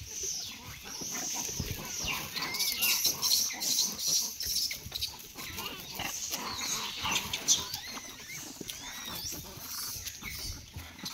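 A troop of rhesus macaques feeding, giving many short squeaky calls that rise and fall in pitch, with scuffling and rustling in dry leaves, over a steady high-pitched hiss.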